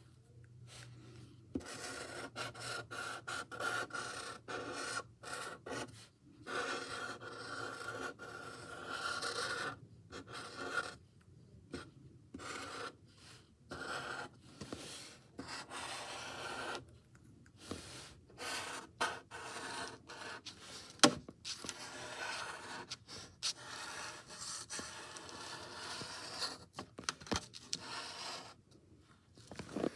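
Colouring strokes on paper: scratchy rubbing in short, irregular runs with brief pauses between them, and a single sharp tap about 21 seconds in.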